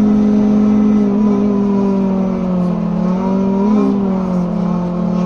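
Inside a BMC Procity city bus under way: the engine's cooling fans drone with a steady deep hum over the Cummins ISB6.7 diesel, the pitch wavering slightly about three to four seconds in.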